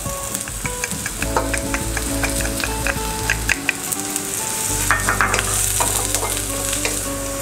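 Chopped onion and minced garlic sizzling as they fry in an enamel frying pan, stirred with a wooden spatula that clicks and scrapes against the pan. The onion and garlic are being softened until translucent.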